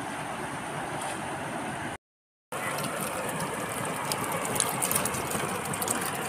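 Rushing river water pouring over a rocky weir, then, after a brief cut, a rapid irregular clicking and rustling of a heap of freshly netted small fish flapping in a net bag.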